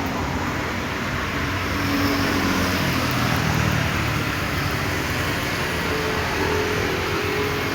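A motor vehicle running steadily, its engine and road noise an even rush with a faint engine tone that shifts a little in pitch now and then.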